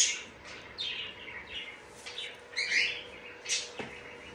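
Cockatoo making a string of short, high chirps and squeaks right at the microphone, each sliding down in pitch, loudest at the start and again twice in the middle.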